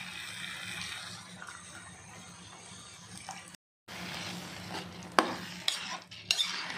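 A steel spoon stirring curd into mashed eggplant in a frying pan, scraping and knocking against the pan with several sharp clicks in the second half. Before that there are a few seconds of faint steady hum.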